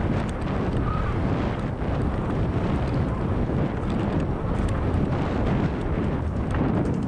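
Wind buffeting the microphone and tyres rolling over a packed dirt trail during a fast mountain-bike descent. Small clicks and rattles from the bike are scattered through it.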